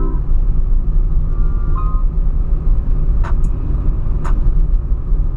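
Engine and road noise inside the cabin of a moving Ford Fiesta hatchback: a steady low rumble. Two sharp clicks come about a second apart past the middle.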